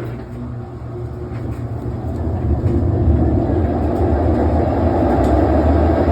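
GE washer's tub spinning up in its spin cycle: a loud rumbling drone that builds over the first three seconds, then holds steady, like a jet turbine. The owner takes the noise for failing tub bearings.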